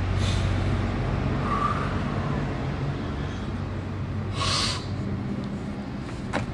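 A steady low hum runs in the background. About four and a half seconds in there is a sharp, breathy, forceful exhale as a 250 kg tire is heaved up off the ground, and a brief knock follows near the end.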